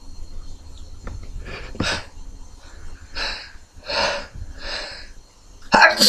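A man's sneeze building up: a run of short, noisy breaths about every three-quarters of a second, then a louder, sharp sneeze bursting out near the end.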